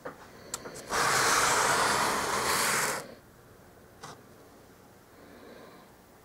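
Plumbing torch flame hissing in one blast of about two seconds across wet foam, starting about a second in and cutting off sharply. A few light clicks come just before it.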